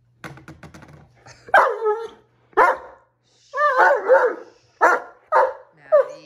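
Great Dane puppy barking repeatedly, about six loud barks, one of them drawn out, after a few light clicks in the first second.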